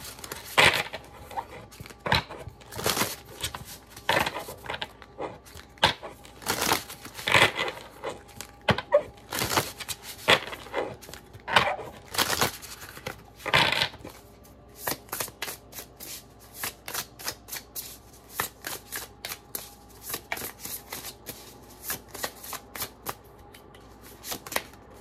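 A deck of oracle cards being shuffled in the hands, in irregular swishes and slaps of card against card. After about 14 s the strokes turn into a quicker run of lighter clicks.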